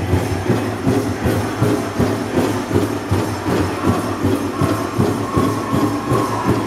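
Powwow drum beaten in a steady rhythm of about two beats a second, with the jingle of bells on the dancers' regalia.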